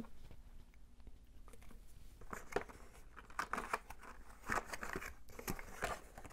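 Rustling of cardboard and light clicks of markers as a hand rummages in an open cardboard marker box, starting about two seconds in.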